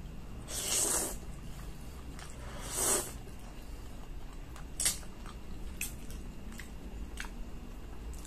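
Close-up eating sounds: spaghetti slurped into the mouth twice, about a second in and again near three seconds, then chewing with a few short wet clicks.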